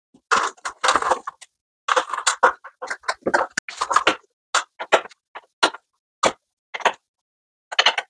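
Scattered sharp clicks and knocks from hand tools on the awning's mounting bolts at the van's roof rack, bunched between about two and four seconds in, then spaced out.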